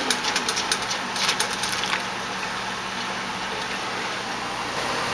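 Steady electrical hum of a running kitchen appliance, with a quick run of rattling clicks in the first two seconds.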